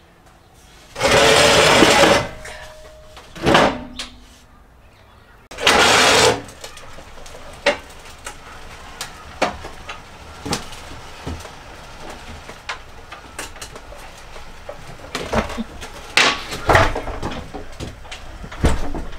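Portable metal wheelchair ramps clattering and scraping loudly as they are set in place at a van's rear doorway, twice. A power wheelchair's motor then runs as it climbs the ramps onto the van's plywood floor, with repeated knocks and clunks from the ramps.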